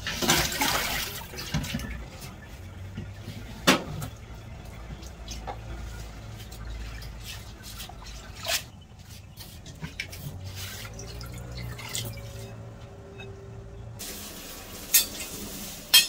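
Hand-washing vegetables in a stainless-steel pot at a steel kitchen sink. A loud splash and rush of water opens it, then quieter water sloshing and dripping, with a few sharp metal clanks of the pot and utensils against the sink.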